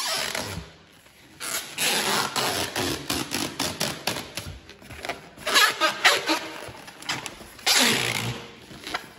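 Hands rubbing, squeezing and folding a long inflated latex modelling balloon: the rubber squeaks and scrapes in several stretches of a second or more, with quieter gaps between.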